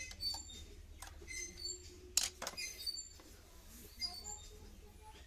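Small birds chirping in short, high, irregular calls, with a few sharp clicks, the loudest about two seconds in.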